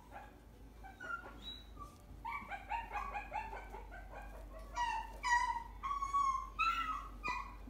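A puppy whining and yipping in a string of high-pitched cries: quick short ones from about two seconds in, then longer, louder cries from about five seconds in.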